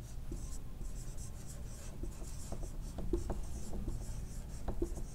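Whiteboard marker writing on a whiteboard: a run of short, faint scratching strokes with small ticks as the tip moves and lifts.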